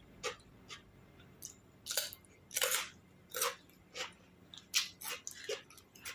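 A person chewing crunchy food close to the microphone: about a dozen crisp, irregular crunches.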